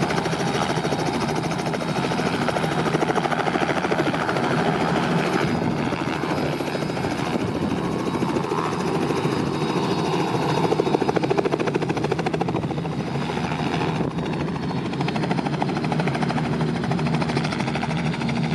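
Robinson R66 helicopter lifting off from grass into a hover and flying away, its turbine and main rotor running steadily.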